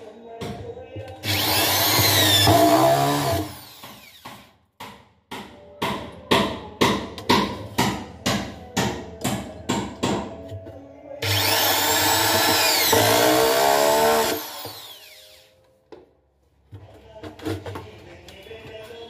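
Cordless drill driving screws through a telescopic drawer slide channel into wood, in two bursts with the motor speeding up and slowing down. Between the bursts comes a run of regular sharp clicks, about three a second.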